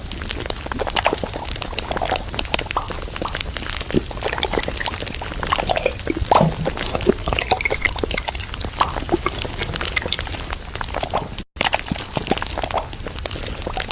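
Steady irregular clatter of containers, bottles and packaging being handled and set in place while restocking a fridge: many small clicks and knocks. The sound drops out for a moment near the end.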